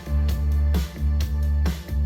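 Funk instrumental with guitar, a steady beat and heavy bass, played through a portable Bluetooth speaker with its EQ set to boost the bass and cut the mids and treble.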